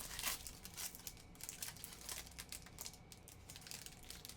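Baseball trading cards being flipped and slid against one another in the hand: quick, irregular papery flicks and rustles, loudest at the start and thinning out.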